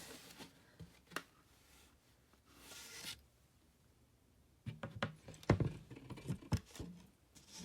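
Handling of flat-pack furniture parts: a brief scraping rustle, then, about halfway through, a cluster of knocks and clicks as plastic tubes are fitted into the holes of a shelf board.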